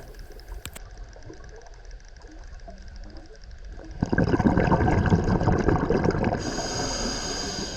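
Scuba diver's exhaled breath bubbling out of the regulator underwater, a dense gurgling rush that starts about halfway through and slowly fades, over faint underwater hiss.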